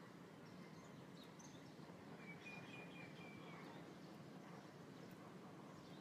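Near silence: faint background noise, with a faint thin high tone lasting about a second and a half just past the middle.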